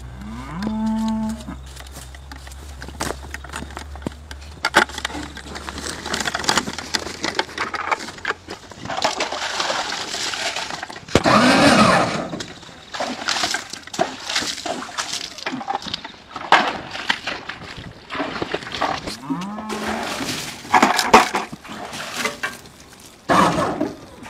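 Cattle mooing several times, long pitched calls. Between them come short scraping, clicking noises of a knife working a hide off a hung carcass.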